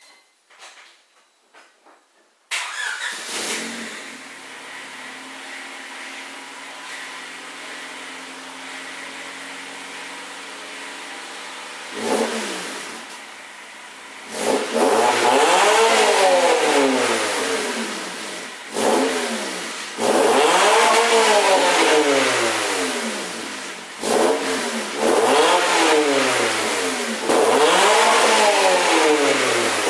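Honda Civic four-cylinder engine starting about two and a half seconds in and idling steadily. Then it is revved several times, each rev rising and falling back, heard at the tailpipe through the old exhaust system, which has a few leaks.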